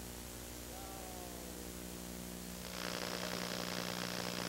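Low steady electrical hum with a faint hiss, the background noise of an old videotape recording. About two and a half seconds in, the hiss turns brighter and slightly louder.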